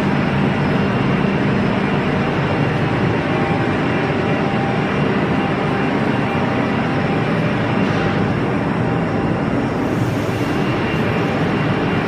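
Automatic horizontal waste-paper baler running: a steady mechanical hum and rumble from its motor and hydraulics, with a few faint extra rustles and clatters near the end.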